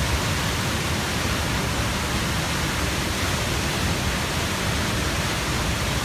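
Mountain waterfall torrent rushing steadily across a road and over the rocks below, a dense, even noise that does not change.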